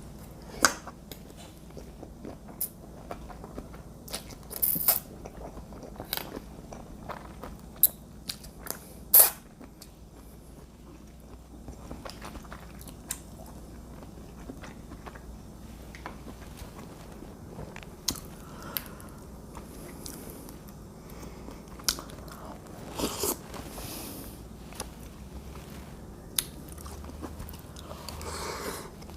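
Close-up eating sounds: a person chewing and biting seafood pasta, with scattered sharp clicks, the loudest about nine seconds in.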